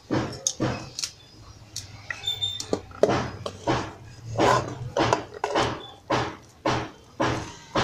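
Spoon scraping cooked spinach out of a pan into a pot of beans, in short rasping strokes about twice a second, over a low steady hum.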